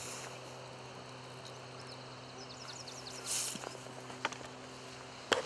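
Faint outdoor ambience at the water's edge: a steady low hum throughout, with a quick run of short, high bird chirps a little past halfway and a sharp click near the end.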